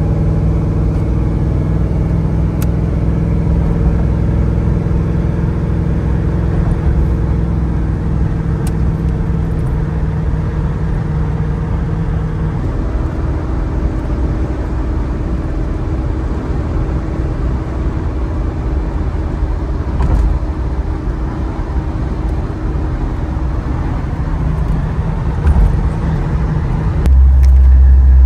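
Oldsmobile Delta 88 driving down the road, a steady engine drone with road noise. The engine note changes about 12 seconds in, and a louder low rumble sets in near the end.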